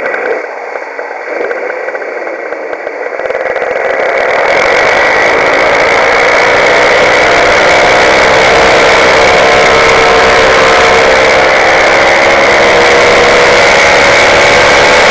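Paramotor engine in flight, running at low throttle and then opening up about four seconds in to a loud, steady drone that holds for the rest of the time.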